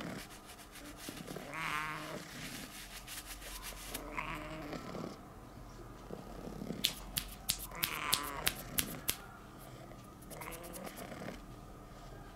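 Black-and-white cat purring in repeated breathing cycles while being stroked. A run of about eight sharp clicks comes in the middle.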